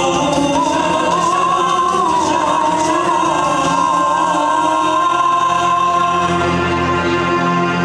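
Nasyid vocal group singing in harmony: a lead voice carries an ornamented, wavering melody over chords held by the other voices, and the lead settles onto a held note shortly before the end.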